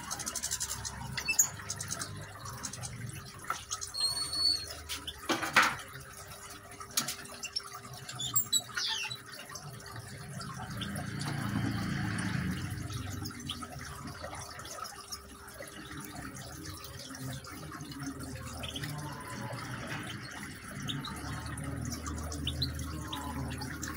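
Water trickling steadily in a small decorative rock fountain. A few sharp knocks come in the first six seconds, and short high bird chirps come a few seconds in and again about eight seconds in.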